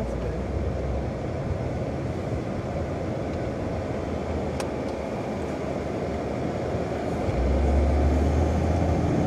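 Steady road and engine noise inside a moving car's cabin, with a deeper low rumble swelling about seven seconds in.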